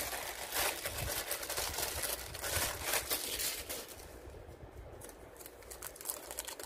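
Plastic wrap being crinkled and pulled off a small figure by hand, a run of dense rustles that thins out after about four seconds.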